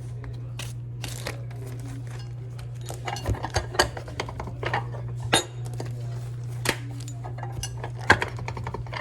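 Kitchen clatter of dishes and utensils: a string of clinks and knocks starting about three seconds in, with a steady low hum underneath.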